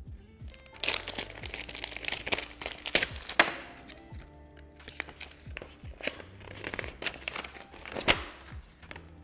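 Packaging being handled and torn open during an unboxing: irregular crinkling, rustling and sharp crackles, with a few thunks, over steady background music.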